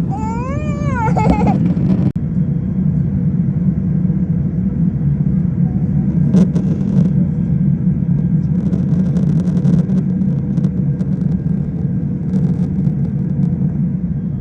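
Steady low rumble of an airliner, with a brief dropout about two seconds in.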